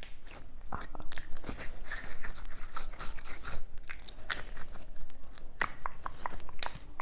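Close-miked ASMR trigger sounds: a dense, irregular run of sharp, crisp clicks and crackles.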